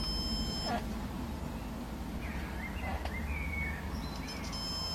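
Multimeter continuity tester beeping: a steady electronic tone that stops less than a second in and starts again near the end. A steady background hiss and a low hum run underneath.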